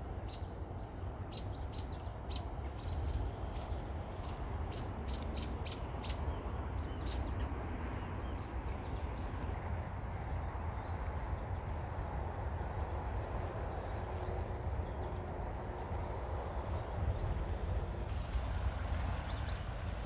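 Small birds chirping over the steady rush of a flowing river. A quick run of short, high chirps comes in the first several seconds, then a few single high, down-slurred calls later on, with a low rumble underneath throughout.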